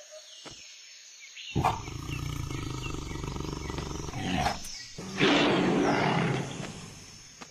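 A loud, rough roar on a cartoon soundtrack. It starts suddenly about a second and a half in, runs steadily, surges louder past the middle and fades out near the end.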